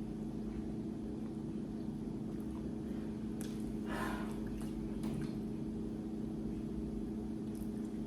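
Faint wet eating sounds, a couple of them about halfway through, over a steady low background hum.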